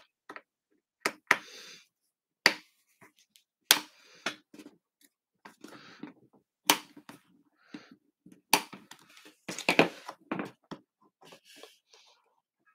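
Small screwdriver working the captive screws of a Framework laptop's aluminium bottom cover: about five sharp clicks spread out, with light scraping and handling noise between them.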